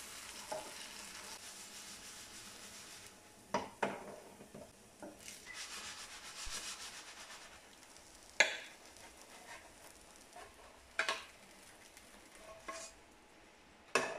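Chive pancake batter sizzling in vegetable oil in a non-stick frying pan. The hiss fades after about three seconds and returns briefly in the middle, with a few sharp knocks and clatters of a utensil against the pan; the loudest comes a little past the middle.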